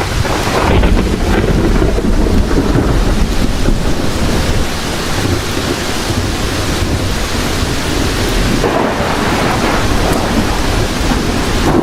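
Heavy, steady rain with a continuous deep rumble of thunder.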